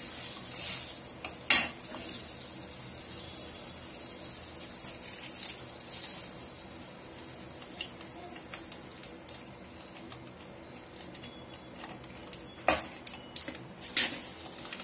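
Mustard seeds, fenugreek and dried red chillies sizzling and crackling in hot oil in a kadai as a spatula stirs them, with a few sharp clicks, one about a second and a half in and two near the end. The mustard seeds are beginning to splutter, the sign that the oil is hot enough for the tempering.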